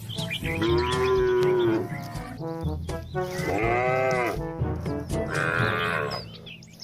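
Cows mooing: three long calls, the second rising and falling in pitch, over background music.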